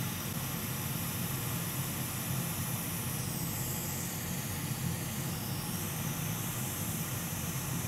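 Hot-air rework station blowing with a steady hiss and a low hum, heating a Wi-Fi module so the solder beneath it melts and reflows.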